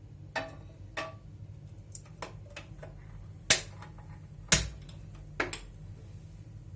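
Kitchen cookware and utensils knocking and clinking: about eight sharp knocks and clicks, the two loudest about three and a half and four and a half seconds in.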